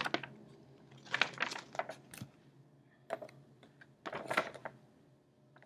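Paper instruction sheets rustling and crackling as they are handled and unfolded, in several short spells with quiet gaps between.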